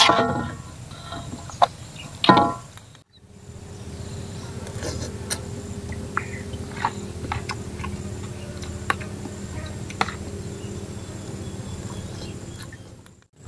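A fork clicking and scraping against a metal wok, then, after a cut, a steady outdoor hum with scattered small clicks of a fork against a plastic plate during eating.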